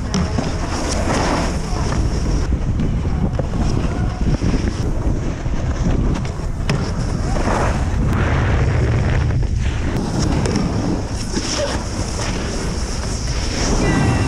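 Wind rumbling on a moving camera's microphone, mixed with snowboards sliding and scraping over snow.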